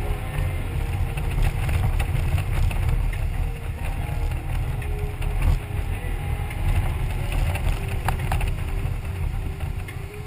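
Wind buffeting the microphone on a moving touring motorcycle, a heavy fluttering rumble over steady road and engine noise.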